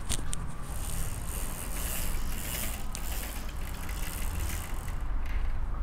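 A fabric Roman blind being drawn up by its pull cord: the cord and cloth give a steady rustling hiss for about five seconds, with a couple of light clicks. A low rumble runs underneath.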